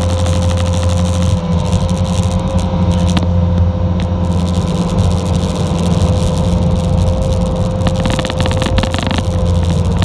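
Bobcat T590 skid steer's diesel engine running steadily under working revs, with a steady whine over it. Rattling and clatter come in near the end.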